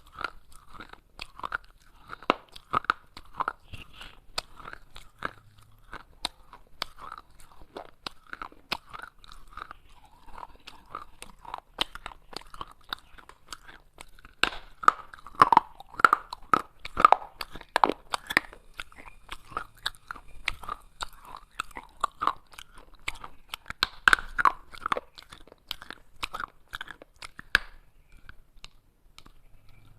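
Close-up crunching of baked clay pot pieces being bitten and chewed: a dense run of sharp, crackly crunches, heaviest around the middle, with a brief pause near the end.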